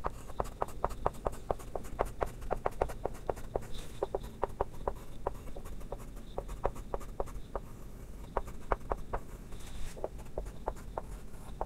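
Chalk lettering on a chalkboard: a quick run of short taps and clicks as each stroke of the letters is made, several a second, with brief pauses between words.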